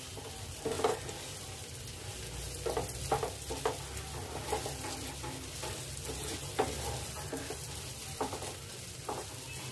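Semolina, mashed potato and nuts stirred and roasted in ghee in a nonstick frying pan: a steady light sizzle, with a spatula scraping and tapping the pan at irregular moments. This is the dry-roasting stage of suji halwa, before the water goes in.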